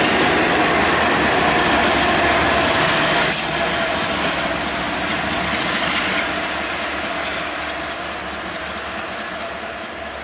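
Norfolk Southern double-stack freight train rolling past slowly, a steady rumble of steel wheels on the rails, with a brief sharp break about three seconds in; the sound fades over the last few seconds as the train draws away.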